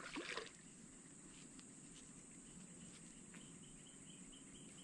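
Near silence with faint insect chirping, a quick even pulse of high chirps, preceded by a brief rustle right at the start.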